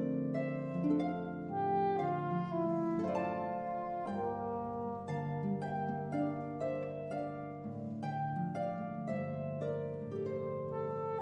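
Instrumental duo music on plucked strings: a flowing melody of ringing plucked notes over held bass notes, in a slow, even pulse.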